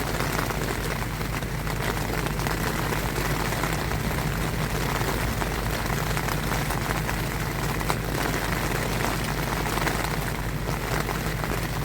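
Steady rain falling during a thunderstorm, an even hiss with a constant low rumble underneath.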